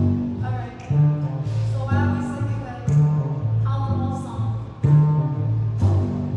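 Upright double bass played pizzicato, a low repeating bass line with a plucked note about once a second, and a woman singing over it.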